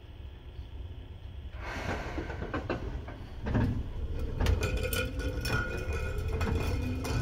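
Seibu 2000 series electric train starting off from a stop, heard from directly above its line breaker. About one and a half seconds in a rush of noise and clicks begins, a heavy clunk comes about three and a half seconds in as power is applied, and then the traction motors' whine climbs steadily in pitch as the train gathers speed.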